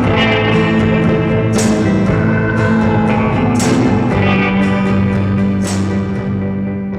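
Psychedelic garage-rock music: guitar playing long held notes over a steady low tone, with a sharp crash about every two seconds.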